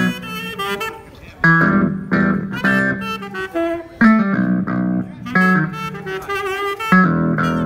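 Saxophone playing a melody in short phrases, with vibrato on some held notes, over a backing track with guitar and bass.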